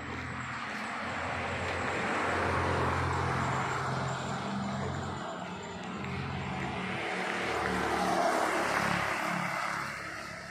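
Engine noise of passing road traffic, swelling to a peak about three seconds in and again about eight seconds in.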